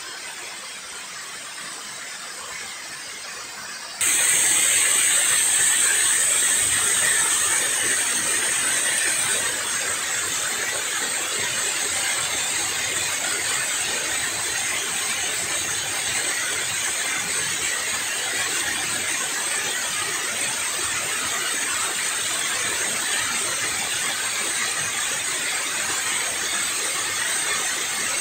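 Water rushing steadily down a concrete river spillway. It is quieter at first, then becomes suddenly louder about four seconds in and stays that way.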